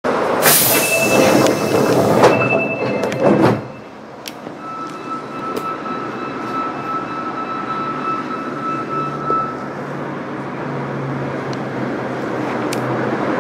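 Inside an Osaka Metro 10A series subway car at a station stop. Loud noise with a few ringing tones cuts off sharply about three and a half seconds in as the doors shut. Then a quieter steady cabin hum with a thin high tone for about five seconds, and a low hum building near the end as the train begins to pull away.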